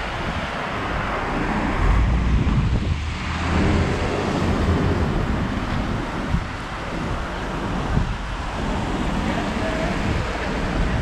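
Road traffic passing on wet tarmac, tyres hissing, mixed with wind buffeting the microphone. A low rumble swells about two seconds in and stays strong for most of the stretch.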